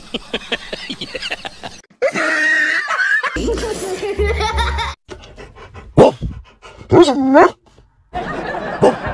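A child laughing hard, among quick cuts that also carry a dog's vocal sounds.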